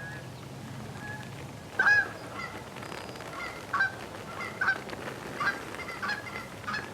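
Geese honking: a loud honk about two seconds in, then a quick irregular run of shorter honks and clucks.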